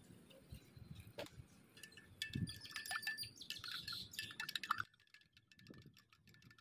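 Light, high-pitched clinking and chiming: a run of small ringing strikes about two seconds in that stops abruptly near five seconds, followed by fainter ticks.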